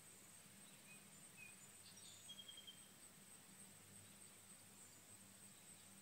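Faint rural morning ambience: a steady high-pitched insect buzz throughout, with a few short, faint bird chirps about one to three seconds in, the longest a brief level whistle.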